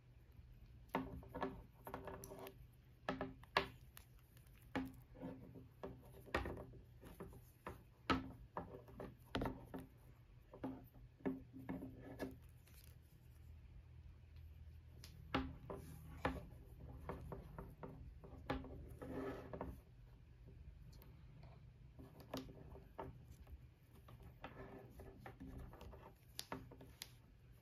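A white Apple USB-C charge cable being uncoiled and handled: quiet rubbing and sliding of the cable against itself and the fingers, with many scattered light taps and clicks as it knocks on a wooden tabletop.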